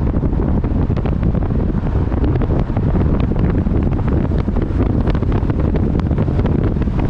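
Wind buffeting the microphone of a camera mounted on the outside of a moving car, a loud steady rumble with constant crackling gusts over the car's road noise.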